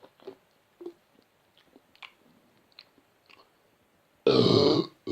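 A few soft mouth clicks and smacks, then one loud, deep burp about four seconds in, lasting about half a second.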